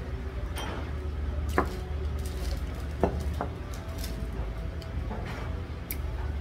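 A few light knocks and clinks of ceramic bowls and dishes being moved and set down on a wooden table, over a steady low hum.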